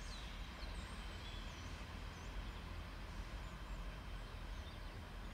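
Low steady outdoor rumble with no clear strikes or changes, with a few faint high bird chirps in the first half.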